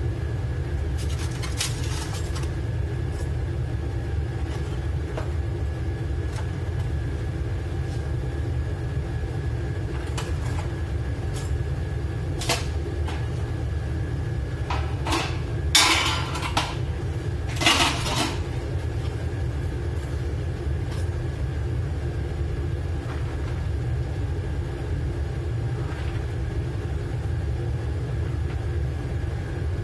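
Steady low rumble and hum of a ship's running machinery, with occasional clatter of dishes and food containers being handled; the two loudest knocks come about halfway through, two seconds apart.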